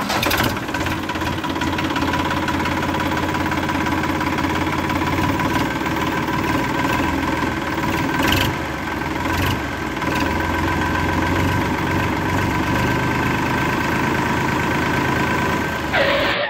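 Miniature toy tractor running steadily: an engine-like drone with a steady whine over a low rumble. It starts and cuts off abruptly.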